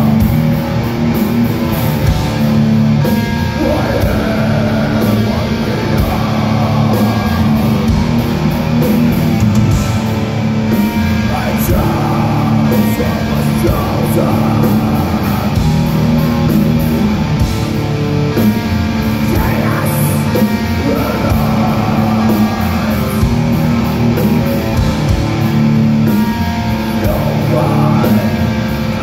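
Black metal band playing live and loud: electric guitar, bass guitar and drums, with vocals into the microphone.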